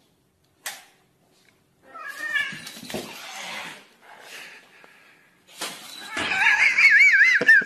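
A cat yowling with a wavering, wobbling pitch: a short call about two seconds in, then a longer, louder one from about six seconds in to the end.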